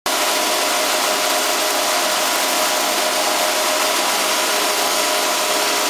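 Snowmaking gun running: a loud, steady hiss of air and water spray with a constant mechanical hum under it.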